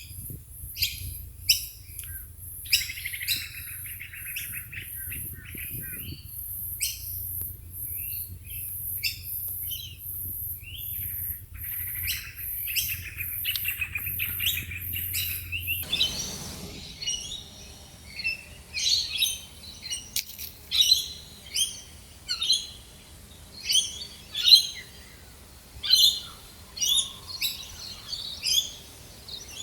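Wild birds calling and chirping. Through the first half a very high, even pulsing runs beneath the calls. About halfway through the recording changes to one bird repeating a loud call roughly once a second.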